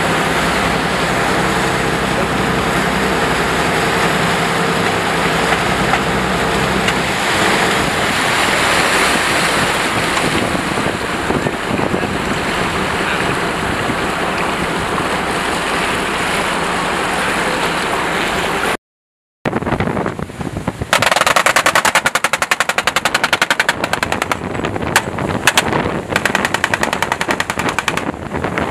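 Military assault boats running at speed: a steady engine drone over rushing water and wind buffeting the microphone. After a brief cut to silence, a fast, even rattle runs over the rushing spray for the last several seconds.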